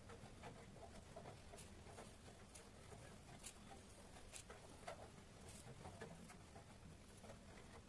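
Near silence with faint, scattered ticks and scratches of fingers pressing and spreading coloured rangoli powder on a hard floor.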